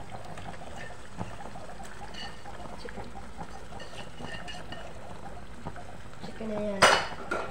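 Marinated chicken pieces dropped by hand into a pan of onion gravy: soft wet sounds with light clicks. Near the end a brief voice is followed by a sharp clatter, the loudest sound.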